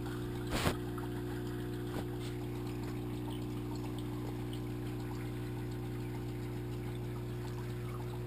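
Aquarium pump running, heard underwater inside the tank: a steady hum with water trickling and bubbling over it. A brief knock about half a second in.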